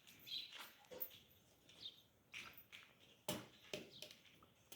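Near silence, broken by a few faint, scattered short sounds: soft clicks and brief chirp-like calls.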